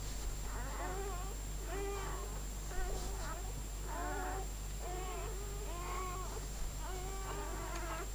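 Newborn puppy crying: short, squeaky, meow-like cries repeated about once a second, some bending up and down in pitch.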